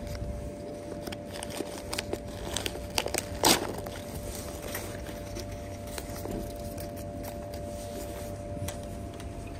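A popcorn bag crinkling as it is pulled apart by hand, then a sharp rip about three and a half seconds in as it tears open, with lighter crinkling after.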